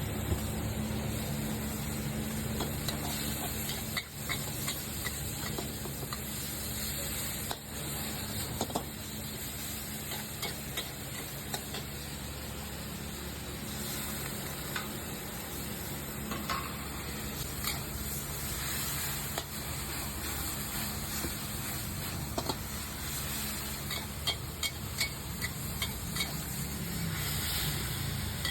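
Street-food market ambience: a steady hiss over a low hum, with scattered light clicks.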